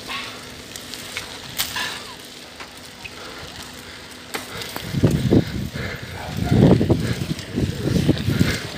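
Someone hurrying along at night with a phone: quiet street background with a faint steady hum, then about five seconds in loud, irregular rumbling and thudding from wind and handling on the phone's microphone as the pace picks up.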